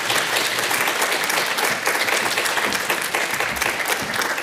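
Audience applauding, a room full of people clapping steadily.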